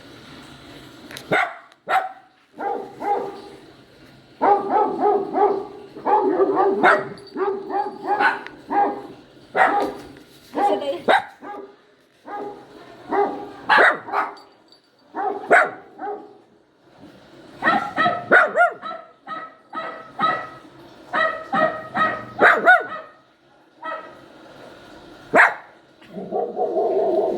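Puppy crying: runs of short, high-pitched whines and yelps, one after another with brief pauses between.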